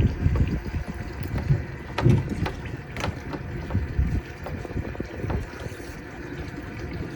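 Wind buffeting a phone's microphone in irregular low rumbles, with two sharp faint clicks about two and three seconds in.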